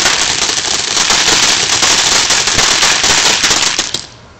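Ground firework spraying sparks with a dense, continuous crackling hiss, which stops abruptly about four seconds in as the firework burns out.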